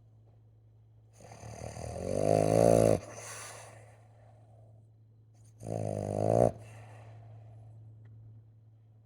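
A sleeping dog snoring: two loud snores, the first building over about two seconds and cutting off sharply, the second shorter about three seconds later, each followed by a softer breath out. A faint steady hum runs underneath.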